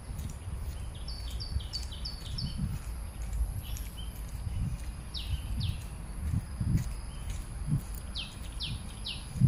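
A bird calling in runs of short, quick falling whistles: five in a row about a second in, two about five seconds in, and three near the end. Underneath, uneven low thumps and rumble from walking with a handheld phone.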